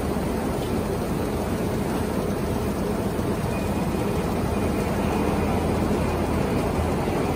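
Six-colour flexographic printing press running, a steady mechanical noise that keeps an even pace throughout.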